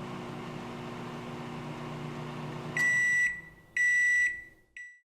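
Microwave oven running with a steady hum, which then stops and beeps three times: two half-second beeps and a short third one, the signal that the heating cycle has finished.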